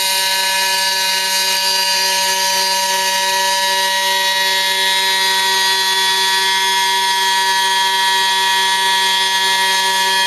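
Proxxon MF70 CNC mini mill cutting 1 mm carbon-fibre sheet: the spindle motor runs at a steady, unchanging pitch, with a hiss of the cutter in the material over it.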